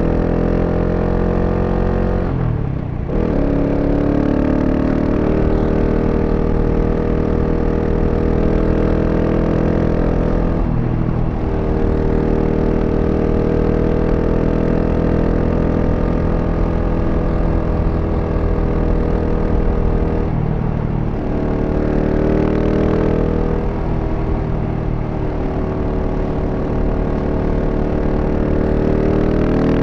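GasGas SM 700's single-cylinder engine, stock exhaust, pulling along on the road, its pitch rising and falling with the throttle. It drops and picks up again with the shifts about three seconds in, around eleven seconds and around twenty-one seconds.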